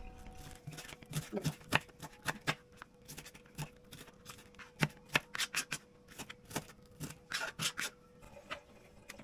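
Knife chopping an onion on a cutting board: sharp, irregular knocks of the blade on the board in short runs, with brief pauses between.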